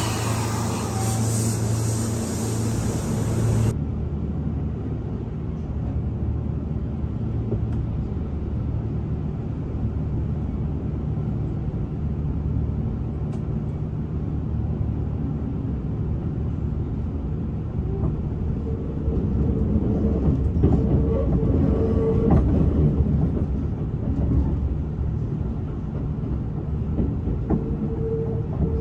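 Kintetsu 30000 series Vista Car limited express, heard at first from the platform and then from inside the carriage as it runs: a steady rumble of wheels on rails. A steady humming tone joins the rumble twice in the second half.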